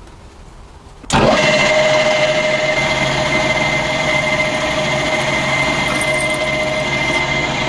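Electric power tool switched on about a second in and running at a steady speed, with a constant high whine over its motor noise.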